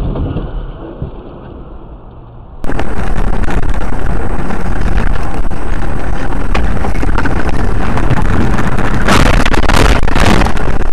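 Car dashcam audio of a moving car: a fading rumble of road noise, then a sudden jump about two and a half seconds in to loud, distorted road and wind noise. Harsher rushing surges come near the end.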